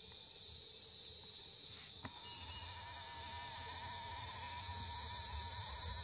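Nocturnal insect chorus of tropical forest: a dense, steady high-pitched trilling. A second, lower steady call joins about two seconds in.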